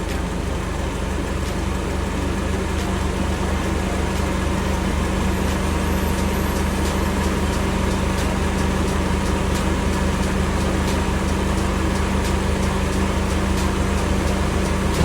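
Honda F20B 2.0-litre four-cylinder engine running steadily at idle just after being started, its hum growing slightly louder over the first few seconds.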